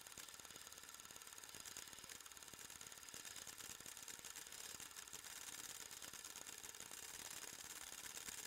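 Faint, steady rapid clicking of an 8mm film transport mechanism running, the clatter of film being drawn through the gate.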